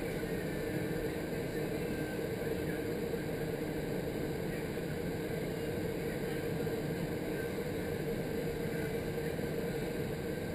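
Indoor skydiving vertical wind tunnel's airflow rushing steadily through the flight chamber, with a constant hum in it.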